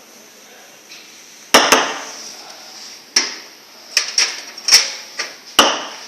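Metal milk pitcher of freshly steamed milk knocked against a hard surface, about eight sharp, irregular knocks starting about a second and a half in.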